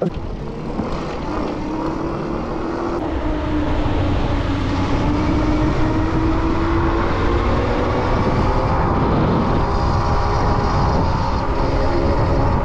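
Strong wind buffeting the microphone while riding an electric bike, with a wavering motor whine over the rumble. It grows louder over the first few seconds as the bike picks up speed.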